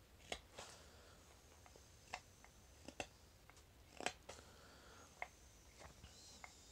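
Carving knife slicing small shavings off a wooden spoon handle while cutting facets: faint, short, sharp ticks at an irregular pace, a little under two a second, the strongest about four seconds in.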